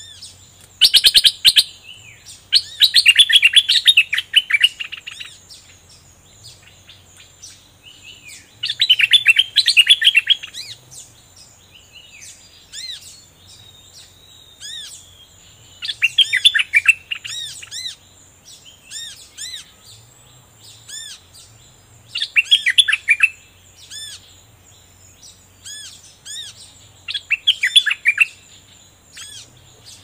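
A caged bulbul singing in loud bursts of rapid, chattering song about every five to six seconds, with softer single whistled notes repeated between the bursts.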